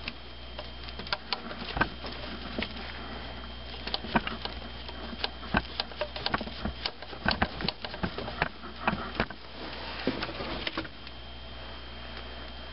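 Irregular clicks and knocks of hands working a car engine's water outlet loose and pulling it off its metal coolant tube.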